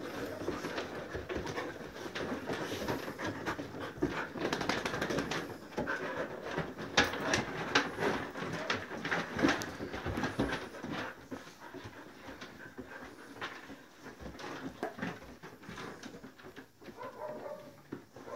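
Several excited dogs panting close by, with scattered clicks and knocks as they move about on wooden kennel boards; louder in the first half, quieter after about eleven seconds.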